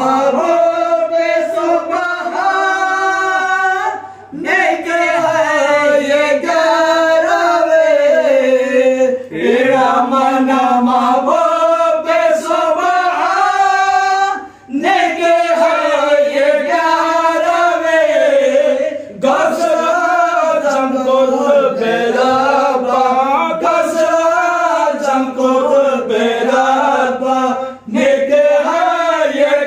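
Male voices singing a devotional chant on a microphone, in long melodic phrases broken by brief pauses every few seconds.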